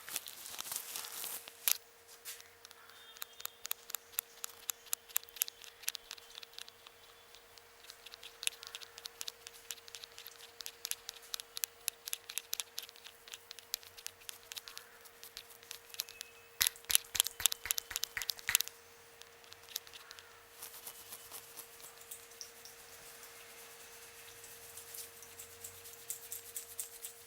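Indian head massage: hands patting and tapping the head in quick runs of sharp pats, loudest in a fast burst a little past the middle. Near the end they give way to softer rubbing.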